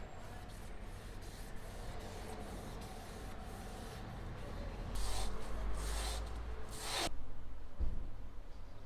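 A trigger spray bottle spritzing cleaner three short times, the last spritz the loudest, after a few seconds of steady rubbing or wiping.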